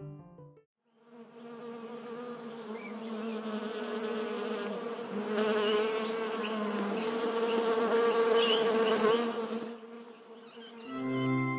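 Buzzing bee sound effect: a steady, slightly wavering buzz that swells louder over several seconds and then fades away.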